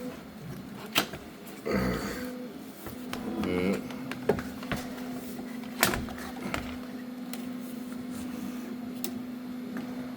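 3D printer running with a steady low hum and a couple of short motor whirs, with a few sharp clicks and knocks from handling.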